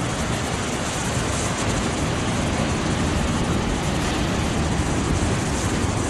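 Ocean surf breaking and churning around boulders on a rocky shore: a steady rushing noise with a deep rumble underneath.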